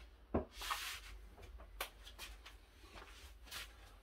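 A dull knock, then a brief rustle and a few faint clicks and taps from someone moving about and handling things in a small room.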